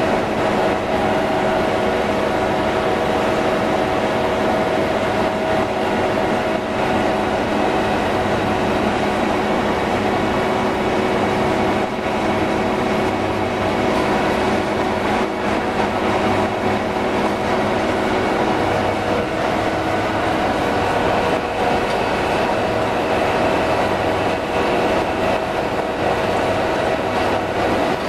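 T2120 deep hole drilling machine running: a steady, loud mechanical drone with several held humming tones over a rushing noise, unchanging throughout.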